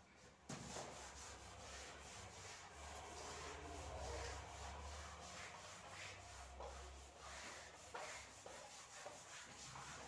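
Whiteboard eraser rubbing back and forth across a whiteboard, wiping off marker writing in quiet, continuous scrubbing strokes that start about half a second in.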